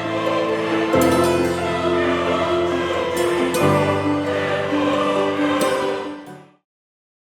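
Background music with a choir singing sustained chords, fading out near the end into silence.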